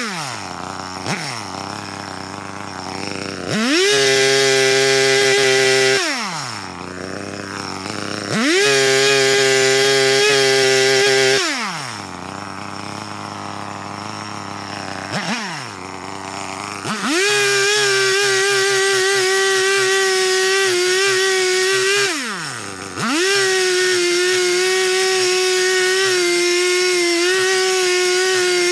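Two-stroke chainsaw switching between idle and full throttle: it revs up and holds a high steady note for a few seconds, drops back to idle and revs again, four times over, the last runs long with only a brief drop between them.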